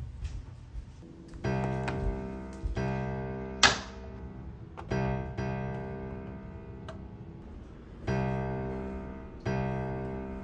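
Slow solo piano music: chords struck every one to three seconds, each left to ring and fade, starting about a second and a half in. A brief, sharp noise about three and a half seconds in is the loudest moment.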